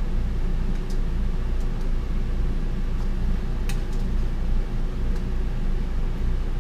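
A steady low mechanical hum, with a couple of light clicks of a fork or knife against a plate.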